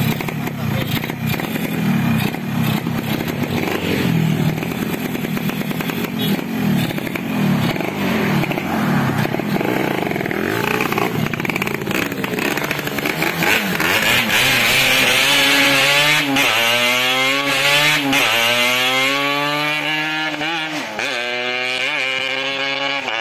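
Yamaha RX-King two-stroke motorcycle engine and exhaust running unevenly with blips for roughly the first half. From about halfway it revs hard with a rasping exhaust note, the pitch climbing and dropping back several times.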